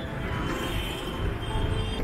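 Background music with a few held tones.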